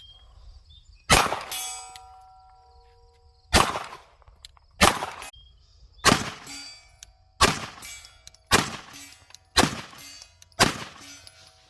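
Glock 19 9mm pistol fired eight times at a slow, steady pace, about one shot a second after a longer pause following the first, each shot followed by the ringing clang of a steel target being hit.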